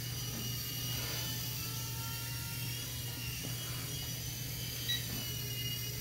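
Small remote-control toy helicopter whirring steadily in hover: its electric motor and rotor blades give a high-pitched whine over a low hum. A brief click sounds about five seconds in.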